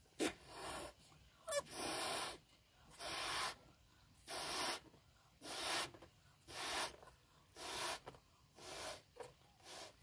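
A rubber balloon being blown up by mouth: a regular series of breathy puffs, about one a second, with a couple of short clicks near the start.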